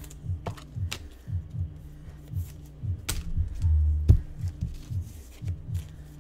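Background rap music with a pulsing, repeating bass line, and a few sharp clicks over it.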